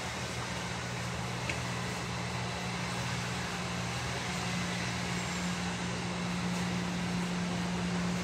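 Steady hiss of rain with a low, steady hum underneath that grows a little louder partway through.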